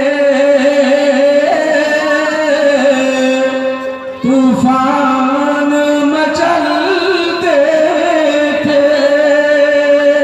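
A man singing a naat in Urdu through a microphone, drawing out long held notes with melismatic turns and vibrato. There is a short break for breath about four seconds in.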